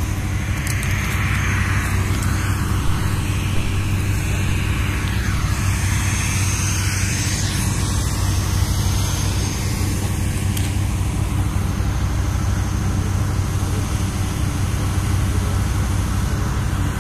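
Steady electrical hum of 70 kV substation equipment, strongest around 100 Hz with a ladder of evenly spaced overtones, over a faint hiss.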